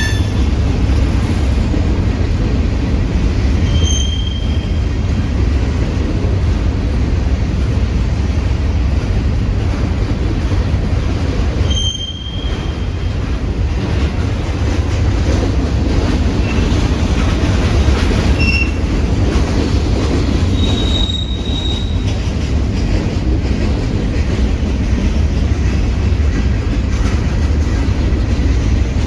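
Freight train cars rolling past with a loud, steady rumble, and short high-pitched wheel squeals several times.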